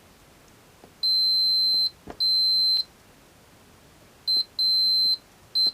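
Continuity beeper giving a steady high beep each time a key fob's tiny tactile switch closes, with faint clicks of the switch being pressed. There are two longer beeps a second or so in, then short, broken beeps near the end as the contacts make unreliably, which the repairer thinks is something failing in the switch contacts.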